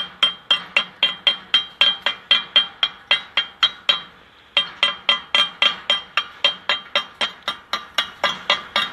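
Slag hammer chipping flux slag off fresh stick-weld beads on steel, a quick steady run of sharp metallic taps, about three or four a second, each ringing briefly, with a short pause about four seconds in.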